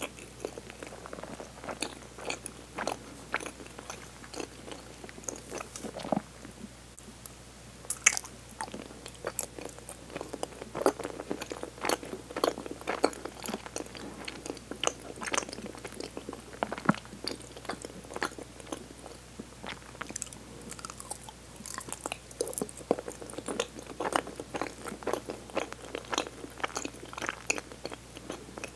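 Close-miked chewing and biting of yōkan, a firm sweet bean jelly: a steady, irregular run of short mouth clicks and smacks, with one sharper click about eight seconds in.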